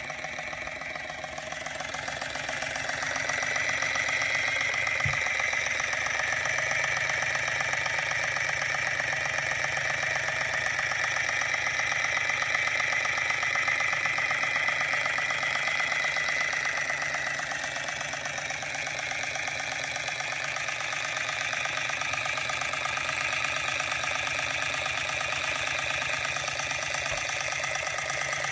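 Georges Carette model 2317 vertical toy steam engine running on steam: a fast, even mechanical beat over a steady hiss, which grows louder about two seconds in and holds steady.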